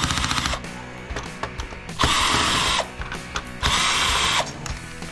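Cordless drill-driver running in two short bursts of under a second each, backing out screws, after a brief rattling burst at the start. Background music plays underneath.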